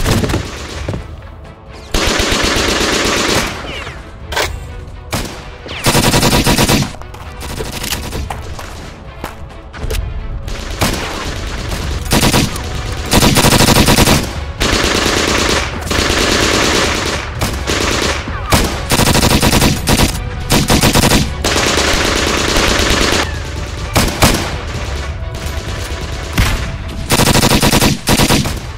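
Battle gunfire: repeated bursts of automatic fire and single shots, the longer bursts one to two seconds each, coming every few seconds.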